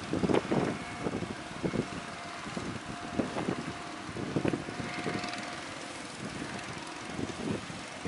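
Outrigger fishing boat's motor running with a steady drone as the boat drives through the surf, over irregular low rumbling gusts.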